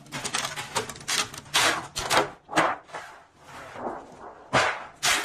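Thin peeled wood veneer sheets being slid and handled against each other and the steel press plates, giving about half a dozen short rasping scrapes with brief pauses between.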